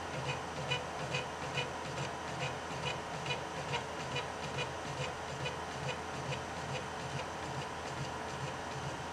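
3D printer's Z-axis stepper motors driving the lead screws in short, regular steps, about two pulses a second over a steady hum. This is the automatic sampling run of a BTT Eddy probe calibration.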